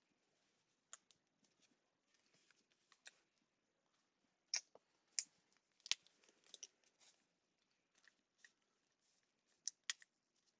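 Faint scattered clicks and light rustles of trading cards being handled and sorted. There are a few sharper taps in the middle and near the end.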